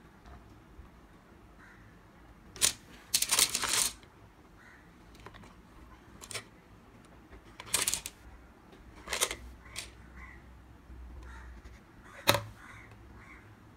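Interlocking plastic building blocks clattering as they slide out of a tipped toy dump truck onto a wooden table. There are scattered sharp clacks, with a short rattling run about three seconds in.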